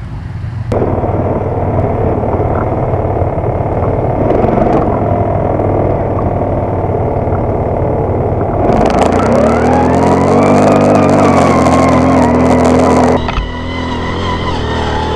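Linhai ATV engine working hard on a steep hill climb, with a rough, dense engine noise. About nine seconds in, the revs rise and hold high for several seconds. Then the sound changes abruptly to a steadier engine note.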